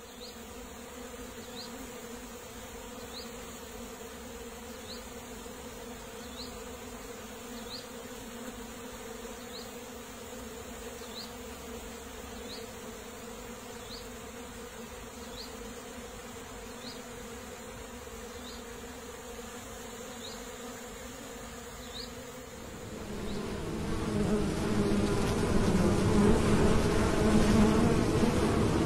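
Honeybees buzzing around a hive entrance: a steady hum of many wings, which grows much louder about 23 seconds in.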